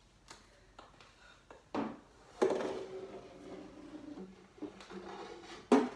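A stick knocking and scraping against something overhead while trying to dislodge a ball: a few sharp knocks, the loudest about two and a half seconds in, followed by a second of scraping and rustling, and another sharp knock near the end.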